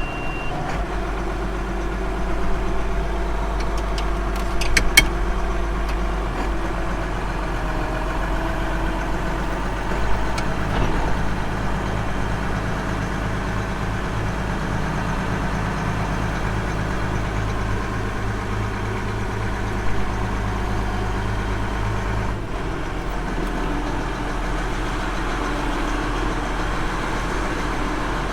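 Tractor engine running steadily at idle, its low note shifting about 22 seconds in, with a few light clicks early on.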